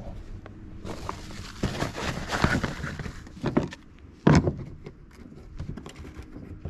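Round plastic twist-on hatch cover being handled and put back on a plastic kayak's front hatch: rustling handling noise, a sharp knock a little over four seconds in as the cover meets the rim, then small clicks as it is turned shut.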